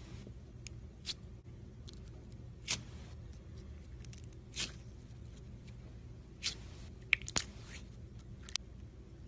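Slime being handled and squished by hand, giving scattered sharp clicks and pops, about eight of them at uneven intervals, the loudest a little past the middle, over a faint steady hum.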